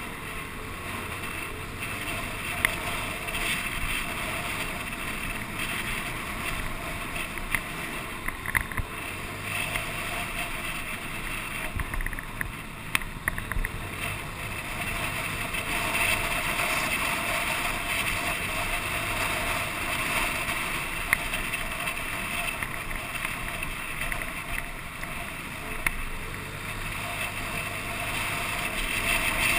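Wind rushing over a vehicle-mounted camera's microphone, with steady road and traffic noise from riding along a busy road, and a few short sharp knocks from bumps along the way.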